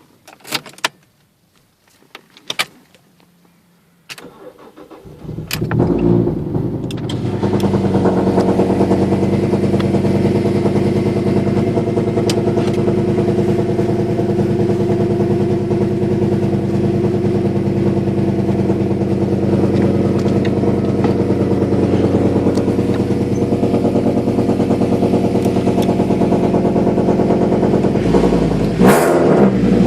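Fiat Marea 2.4 20v inline five-cylinder engine, after a few clicks, is cranked and starts about five seconds in, then idles steadily with a loud rumble through a full 2.5-inch exhaust. Near the end the throttle is blipped once, a quick rise and fall in revs.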